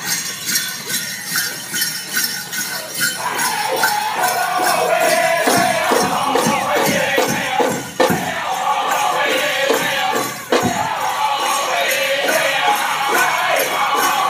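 Powwow drum group playing for a men's traditional dance: a steady, even drum beat with high singing that comes in about three seconds in, and the bells on the dancers' regalia jingling with their steps.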